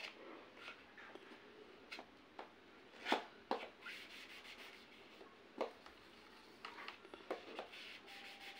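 Marker pen scratching and tapping on a child's plastic drawing board in short, scattered strokes, with a couple of sharper taps about three seconds in.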